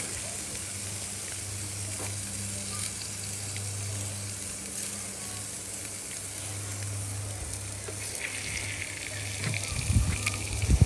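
Food sizzling as it fries in oil in a pan: a steady hiss over a steady low hum, with a few knocks near the end.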